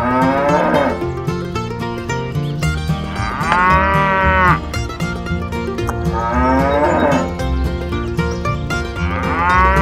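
Cattle mooing, four long calls about three seconds apart, over background music with a steady beat.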